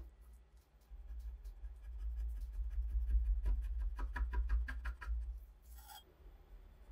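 Metal putty knife scraping gummy old finish off a wooden knife-handle scale: a quick run of short scratchy strokes, busiest in the middle, over a low rumble, with one longer stroke near the end.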